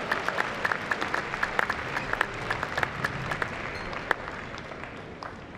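Audience applauding, the clapping thinning and dying away near the end.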